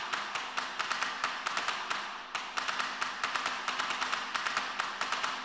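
Rapid light ticking clicks, about seven a second, over a faint steady low tone, as a sound-design build-up in a promo soundtrack. The clicks pause briefly about two seconds in.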